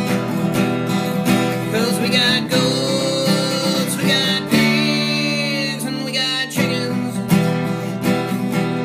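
Background country-style song with strummed acoustic guitar and a singing voice.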